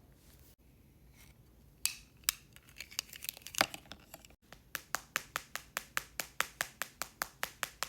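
A few scattered sharp clicks, then a steady run of sharp clicks or taps, about four a second, starting about halfway through.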